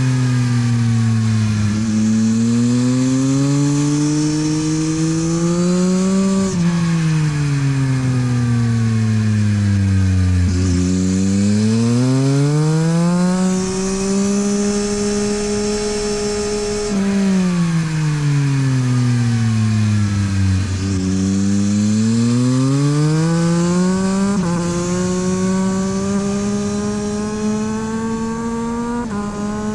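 Yamaha MT-09 SP's three-cylinder engine through a LeoVince exhaust, lapping a track: revs climb under acceleration with sudden drops in pitch at each upshift, hold high for a few seconds, then fall away smoothly under braking, twice over.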